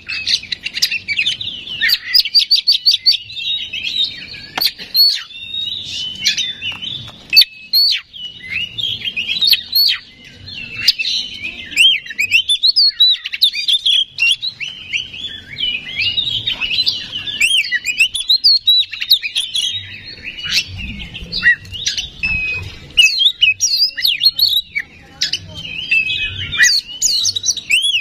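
Oriental magpie-robin (kacer) singing continuously: a loud, rich, varied song of whistled phrases mixed with rapid series of sharp repeated notes, with hardly a pause.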